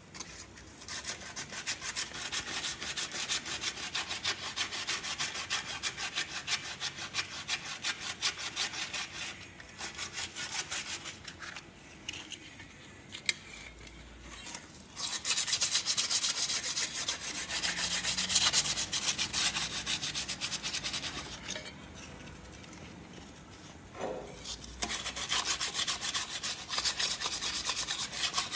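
Sandpaper rubbed by hand over the metal oil-pan sealing surface of a 2010 Ford F-150's 4.6 V8, cleaning it before the new gasket goes on. The strokes are quick and back-and-forth and come in several bouts, with pauses about a third and three-quarters of the way through and a single knock just before the last bout.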